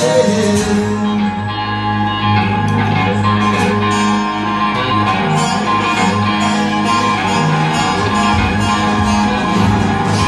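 Live band playing an instrumental passage, with strummed acoustic and electric guitars over a steady cajón beat and no vocals.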